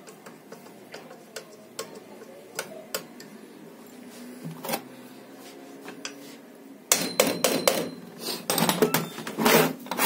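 Sparse light clicks of a screwdriver turning the screws of an alternator being reassembled, then about seven seconds in a quick run of loud hammer blows on the alternator housing.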